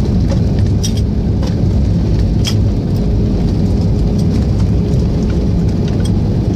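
Inside an airliner's cabin during the landing roll: a loud, steady rumble of the engines and the wheels on the runway, with light rattling clicks from the cabin fittings.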